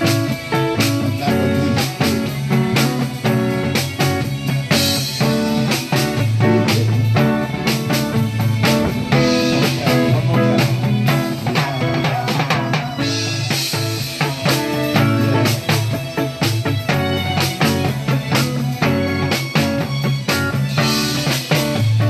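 Live band music with a steady beat: timbales struck with sticks over electric guitar and drum kit, with many sharp hits and a moving bass line.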